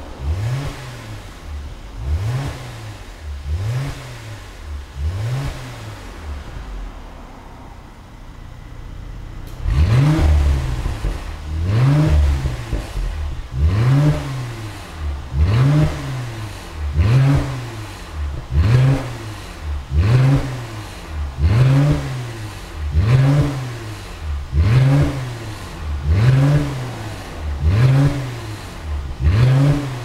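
Mercedes-AMG C43's twin-turbo V6 through an ARMYTRIX cat-back valvetronic exhaust, revved in short blips about once a second while standing still. The revs drop back for a few seconds, then about ten seconds in the blips return much louder and brighter, the change that comes with the exhaust valves opening.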